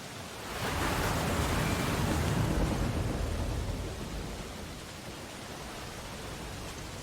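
Storm ambience of steady rain and surf noise. About half a second in it swells into a louder crash lasting about three seconds, hissing at first and then rumbling low, before settling back to the steady wash.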